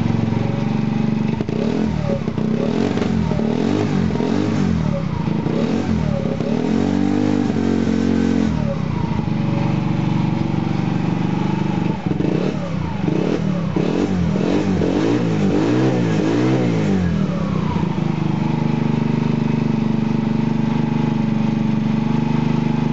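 Baotian scooter engine through an aftermarket Leo Vince exhaust, idling and then revved up and down repeatedly in two spells, settling back to a steady idle near the end.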